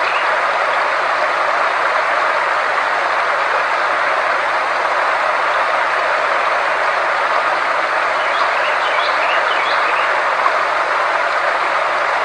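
Sound-therapy track: a steady, even rushing noise with a faint low hum underneath, and a few faint high chirps about eight to ten seconds in.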